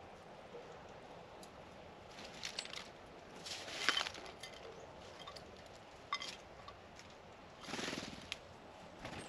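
Faint outdoor background with a few short rustles and taps, the loudest about four seconds in and another near eight seconds: animals landing at and picking over a plate of peanuts.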